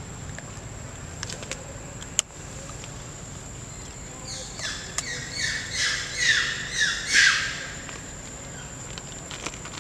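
A bird calling a rapid series of about ten high notes, each falling in pitch, three or so a second, growing louder near the end. A single sharp click comes about two seconds in.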